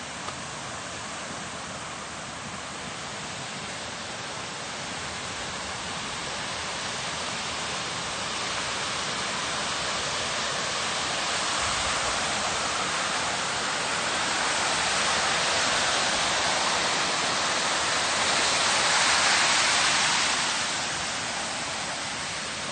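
Steady rushing noise of water in a heavy rain and hail storm. It grows louder through the middle, peaks near the end, then eases a little.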